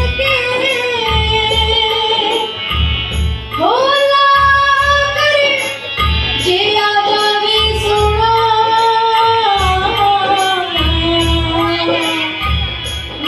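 A child singing a Punjabi folk-style song into a microphone, drawing out long, wavering held notes over a backing track with a steady low drum beat.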